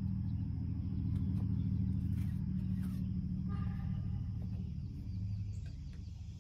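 A steady low, engine-like rumble that eases a little near the end.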